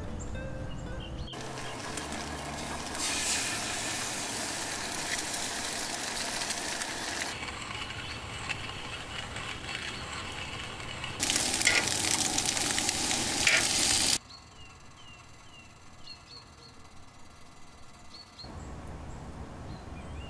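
Camp cooking sounds: a steady hiss and sizzle, and the grinding of a hand-cranked coffee grinder, louder for a few seconds past the middle. Then a quieter stretch with short chirps. Brief music at the start.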